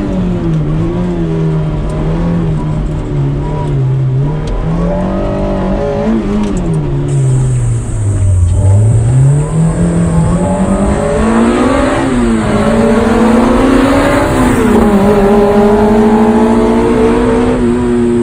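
Toyota 2ZZ 1.8-litre inline-four in an MR-S hill-climb car, revving up and down through the gears. The revs fall to a low point about eight seconds in, as for a tight corner, then climb again under hard acceleration and carry on through further gear changes.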